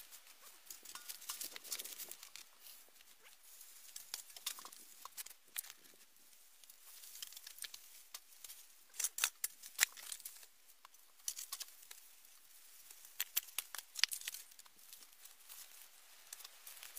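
Footsteps crunching through dry leaves and twigs, an irregular run of crackles and snaps with a few louder clusters.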